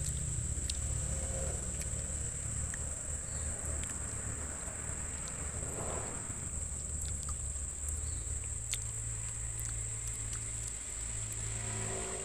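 Steady, high-pitched, unbroken insect drone in a tropical plantation, over a low background hum and a few faint clicks.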